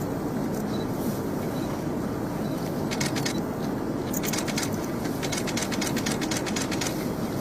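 Vehicle engine running steadily with a low rumble, with a run of quick, sharp clicks about halfway through.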